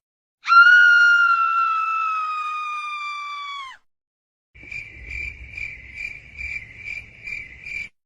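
Two sound effects in a row. First, a long high pitched tone that slides slowly down in pitch and fades, then dips away at the end. Then cricket chirping at a little over two chirps a second.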